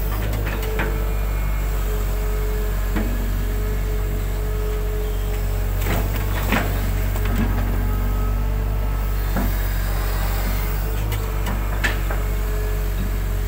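Hitachi hydraulic excavator running steadily, with a constant engine drone and a steady hydraulic whine, heard from the cab as the boom and bucket work mud. Several sharp knocks and clunks from the machine, the loudest about six and a half seconds in and near the end.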